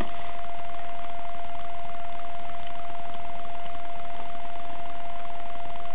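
A steady electronic tone held at one pitch without a break, like a test tone, over a constant hiss.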